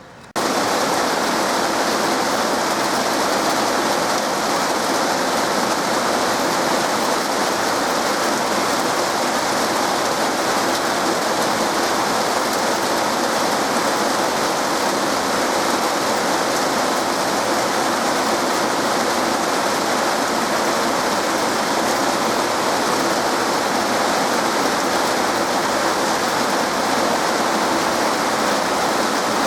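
Heavy rain falling in a steady downpour, coming in suddenly about half a second in.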